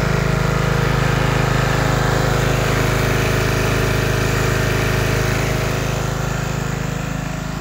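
Briggs & Stratton 12.5 hp single-cylinder engine of a Stiga Park HST ride-on mower running steadily, a little quieter near the end.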